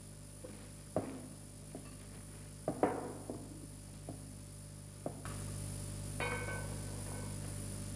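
Scattered knocks and clinks, the hardest about a second in and near three seconds, over a steady low hum that gets louder about five seconds in, with a short ringing clink soon after.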